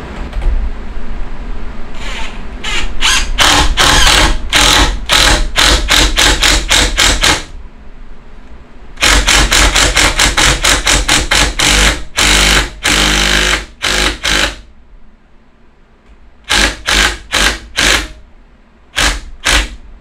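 Cordless drill driving a screw down into the wooden rail of a rocking chair, in runs of rapid, evenly spaced knocks with short pauses between them; the last runs near the end are brief.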